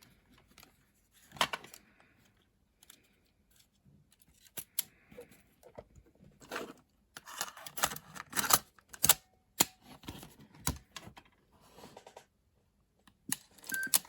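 Small plastic and metal parts of a cassette Walkman being handled and worked on by hand: irregular clicks, taps and light scrapes.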